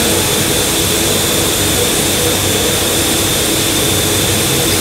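Steady, loud roar of aluminium-wheel casting machinery, with a low hum and a thin high whine running through it.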